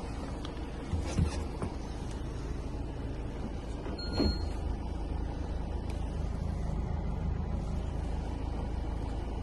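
Iveco Daily 35S14 van's four-cylinder diesel engine running with a steady low rumble, with two brief knocks, about one and four seconds in.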